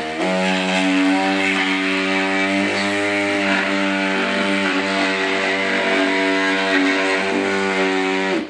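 BTB oscillating glass-removal cutter running, its blade tip working into the hard urethane adhesive bead at the glass edge: a steady buzzing tone with a hiss of cutting, wavering slightly a few times under load, then cutting off near the end.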